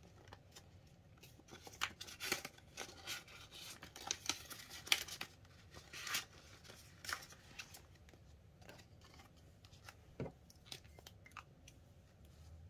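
Crisp crinkling and rustling of Canadian polymer banknotes being handled and tucked into a clear plastic binder envelope: a quick run of sharp rustles over the first several seconds, then a few sparser, softer ones.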